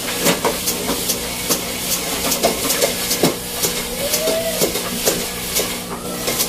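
Old Singer treadle sewing machine being pumped by foot: the cast-iron treadle and its linkage click evenly, about two a second, over a steady hiss, with a brief squeak about four seconds in.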